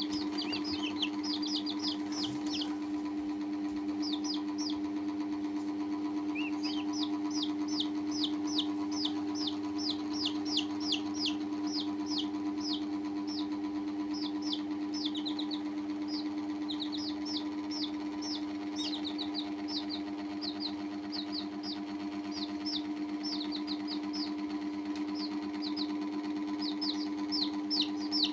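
Baby chicks peeping: rapid, high, falling peeps, several a second in runs with brief pauses. A steady low mechanical hum runs underneath.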